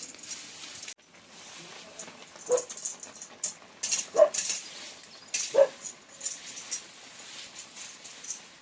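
Three short animal cries about a second and a half apart, over a light intermittent rustling hiss.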